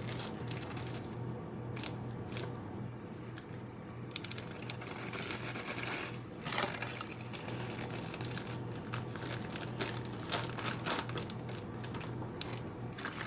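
Plastic container being squeezed and handled, with irregular crinkling and small clicks, over a steady low hum.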